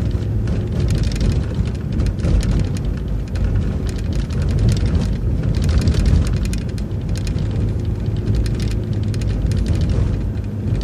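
City transit bus driving along, heard from on board: a steady low engine and road rumble with a constant drone, and many small rattling ticks over it.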